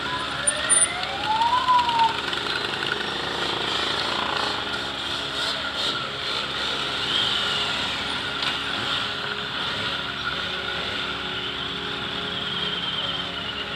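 Cruiser motorcycles and a trike riding slowly past in a column, a steady blend of several engines running. About a second in there is a brief whine that rises and then falls.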